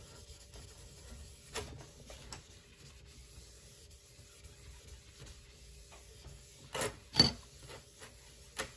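Paper towel rubbing over a sanded glass 3D-printer bed, a faint low scrubbing, wiping away the water and sanding dust. A few short sharp knocks come through, the loudest about seven seconds in.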